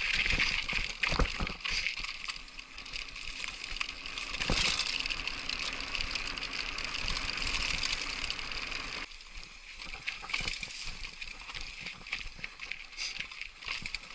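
Trek Superfly mountain bike rolling fast downhill over rough rock and dirt, with wind rushing over the handlebar-mounted microphone and a run of knocks and rattles from the bike hitting bumps. The wind noise drops about nine seconds in, leaving mainly the tyres and rattles.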